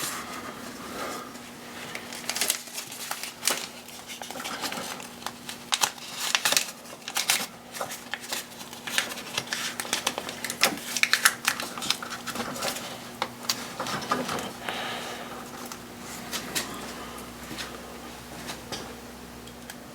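Tape being pulled off the roll and wrapped over an unplugged electrical connector: an irregular run of crinkling and sharp clicks, over a faint steady hum.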